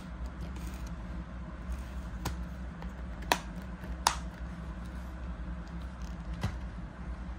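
Black plastic DVD keep case being closed and handled: a few sharp plastic clicks and taps, the loudest two about three and four seconds in, over a steady low background hum.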